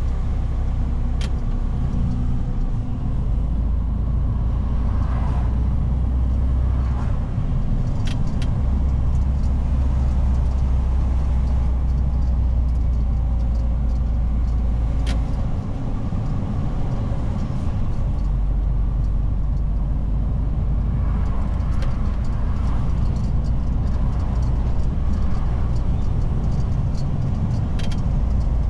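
Mercedes-Benz Arocs truck's straight-six diesel engine running under way, heard from inside the cab: a steady low drone with road noise, which breaks off and shifts pitch a few times, with a few faint clicks.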